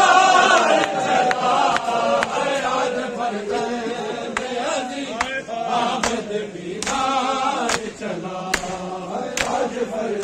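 Many men chanting a noha, a mourning lament, in unison, with sharp hand slaps on bare chests (matam) about once every 0.8 seconds in time with the chant.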